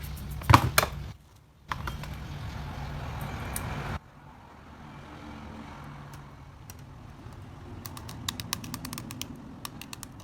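Small sharp clicks and taps of hard plastic and metal, as in handling and working on a phone's parts, with a loud cluster of clicks about half a second in and a quick run of light clicks near the end, over a steady low background hum. The sound cuts out abruptly twice.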